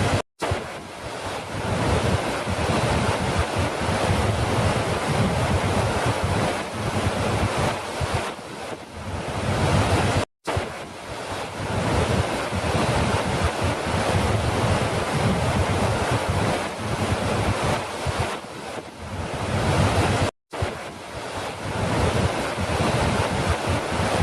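Falling water rushing steadily, a dense hiss with a low rumble beneath it. The sound cuts out for a split second about every ten seconds, three times in all, as if the recording loops.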